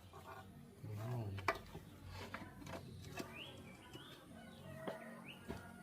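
Scattered sharp metallic clicks of engine parts and tools being handled, with a bird chirping several short rising notes in the background from about three seconds in.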